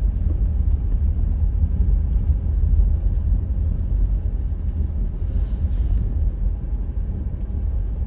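Car driving slowly on a snow-covered road, heard from inside the cabin: a steady low rumble of engine and tyres.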